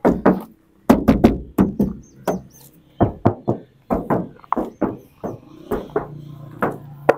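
Knuckles rapping on the sheet-metal side panels of a Toyota Hiace van, a quick run of sharp knocks moving along the body. It is a by-ear paint check: the sound is not heavy, which the owner takes for original factory paint with no repaint.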